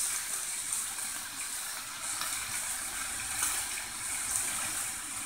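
Baby octopuses sizzling in a frying pan: a steady hiss with a few faint crackles.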